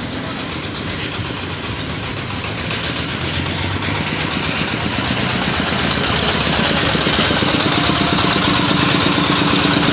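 Engine of a red-brick making machine running steadily, growing louder with more hiss about halfway through.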